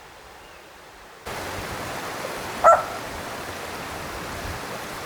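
Steady rush of flowing valley water that starts abruptly about a second in, with a single short dog bark midway through.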